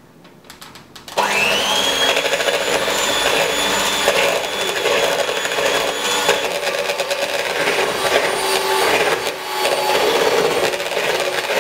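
Electric hand mixer switched on about a second in, its motor whining up to speed and then running steadily as the beaters whisk batter in a bowl.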